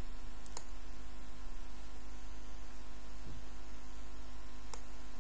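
Steady low electrical mains hum with faint hiss on the microphone line. Two faint computer-mouse clicks sound, one about half a second in and one near the end.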